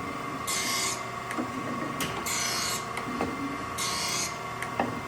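Acer AGS-1224AHD automatic surface grinder working under automatic down-feed. The grinding wheel hisses against the workpiece in three short bursts, one on each pass of the reciprocating table, about every second and a half to two seconds. Under the bursts the running machine keeps up a steady hum.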